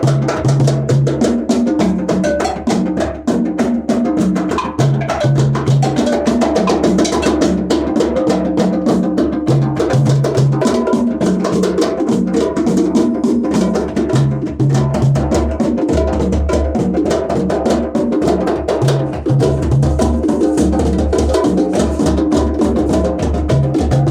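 Percussion music with a steady beat: hand drums and woodblock-like clicks over a low bass figure that repeats every few seconds.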